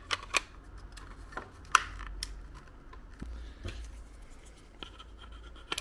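Plastic parts of an airsoft AK-74 replica's stock being fitted back together by hand after the battery is put in: scattered sharp clicks and light scrapes, a few of them louder, over a faint low hum.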